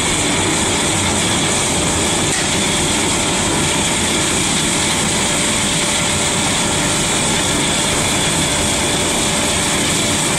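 Biomass sawdust burner firing at full flame, a loud, steady roar from its flame jet and combustion air, with a faint steady hum underneath.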